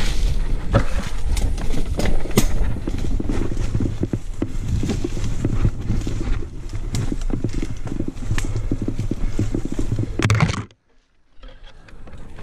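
Mountain bike jolting over a rough dirt trail: a steady low rumble with a constant run of sharp knocks and rattles from the bike, picked up by a handlebar-mounted GoPro. The noise cuts out briefly near the end, then comes back quieter.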